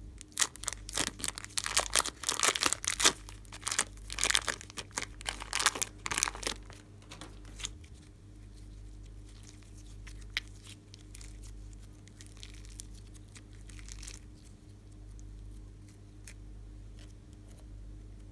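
Thin clear plastic wrapping crinkling and tearing as it is peeled off a ball of red slime, in dense rapid strokes for about the first seven seconds. After that it is much quieter, with only a few faint clicks as the slime is handled.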